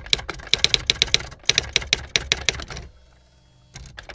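Typewriter-style typing sound effect: rapid, irregular key clicks that stop for under a second about three seconds in, then start again.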